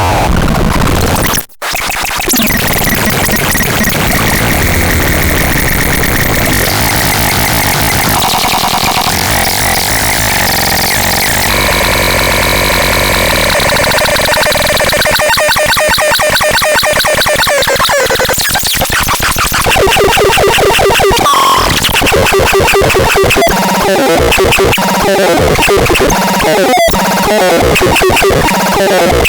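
ELVIS TRON electronic noise synthesizer playing loud, chaotic tones that keep shifting in pitch and pattern, with fast pulsing textures. The sound cuts out briefly about a second and a half in.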